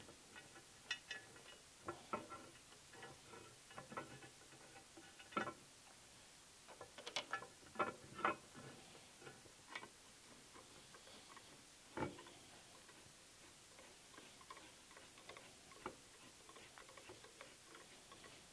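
Faint, scattered clicks and clinks of metal on metal as the fence is fitted to a vintage Delta 6-inch jointer and its bolts are worked with a hand tool, spaced irregularly with a small flurry about seven seconds in.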